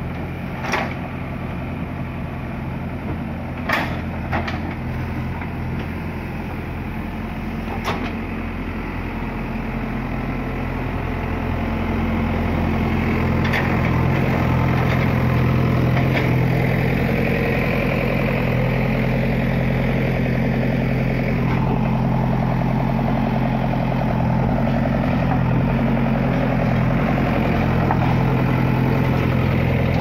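JCB backhoe loader's diesel engine running steadily at a working speed of about 1400 rpm while the backhoe digs. A few sharp knocks sound in the first eight seconds, and the engine grows louder from about twelve seconds in.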